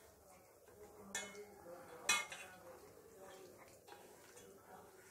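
Metal mixing bowl clinking as fish pieces are mixed by hand in a masala marinade: a clink about a second in and a louder one about two seconds in, each with a brief ring, over faint handling sounds.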